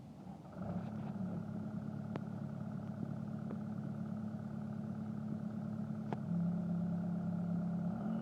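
Caterpillar skid steer loader's diesel engine running steadily. It gets louder about half a second in and again near six seconds in, with a few faint ticks over it.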